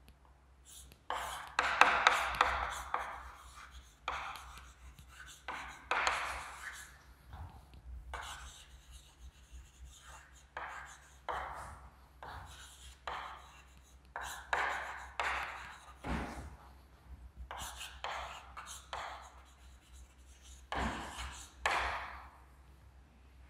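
Chalk writing on a chalkboard: irregular scratching and tapping strokes as a line of words is written out.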